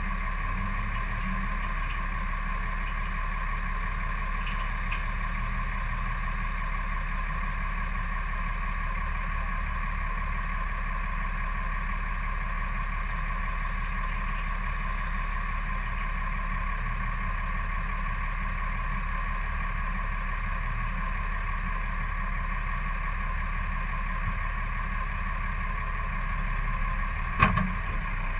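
Tow truck's engine idling steadily, heard from a camera mounted on its hood. About a second before the end the level rises briefly and a single sharp knock sounds.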